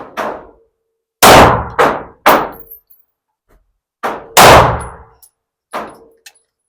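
A string of pistol shots, each ringing briefly. The two loudest come about three seconds apart, and each has other quick shots close around it, in double-tap pairs.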